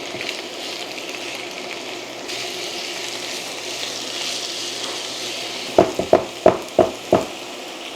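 Mushrooms frying in butter in a pan with a steady sizzle, then five quick sharp knocks near the end.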